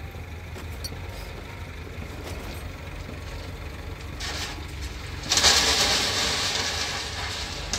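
JCB backhoe loader's diesel engine running steadily, then about five seconds in a bucketful of stone ballast tips into a steel trailer: a sudden loud clatter of stones that trails off over a couple of seconds.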